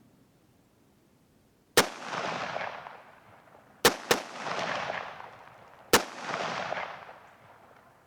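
Four rifle shots: a single shot, then a quick pair, then another single. Each sharp crack is followed by about a second of rolling echo.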